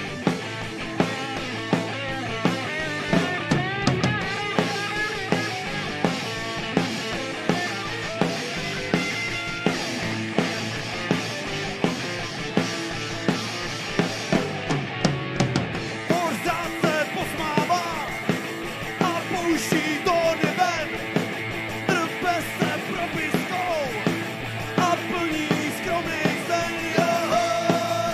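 Live rock band playing with electric guitars, bass guitar and a drum kit keeping a steady beat. About halfway through the band gets fuller and busier, with cymbals coming in.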